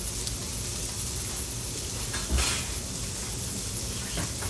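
Steady background hum and hiss with a faint high whine, broken by one short thump a little past halfway.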